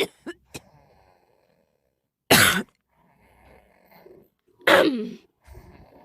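A person sick with a cough, coughing twice about two and a half seconds apart; the voice drops in pitch on the second cough.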